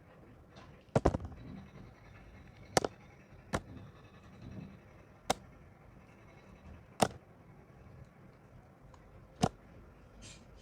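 Knife cutting soft soap: a handful of sharp clicks at irregular spacing, a quick cluster about a second in and then single ones one to two and a half seconds apart.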